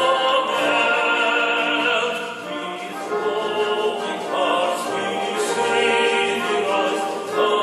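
A recorded national anthem, sung by a choir with an orchestra, played for a flag-salute ceremony.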